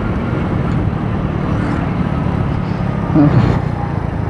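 Hero Passion Pro 100cc single-cylinder motorcycle engine running steadily on the move, heard from a helmet-mounted phone with wind and road noise. A brief louder sound rises about three seconds in.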